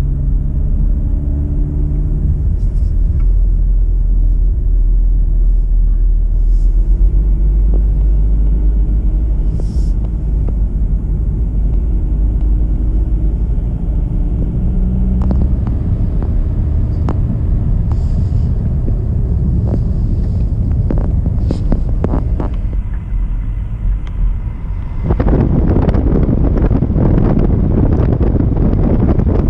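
A car running on the road, heard from inside: a steady low engine and road rumble, with the engine's tone shifting up and down as it changes speed and scattered light knocks and rattles. Near the end the tyre noise turns louder and rougher.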